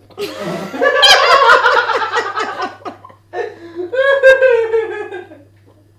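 Women laughing hard in two bursts, the second sliding down in pitch as it fades.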